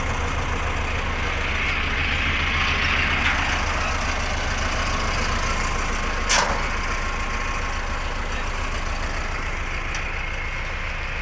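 Mahindra Arjun Novo 605 tractor's diesel engine idling steadily with an even low throb, with a single sharp knock about six seconds in.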